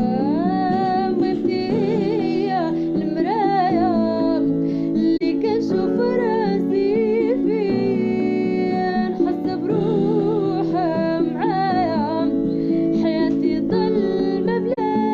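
A sung melody with wavering, gliding ornaments over a plucked acoustic-guitar accompaniment, in a Moroccan-style ballad.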